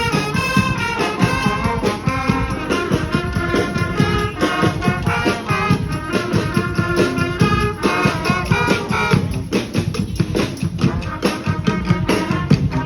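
Street brass band playing a tune: horns in harmony over a steady drum and percussion beat. About ten seconds in the horns briefly drop back, leaving mostly percussion, then come in again.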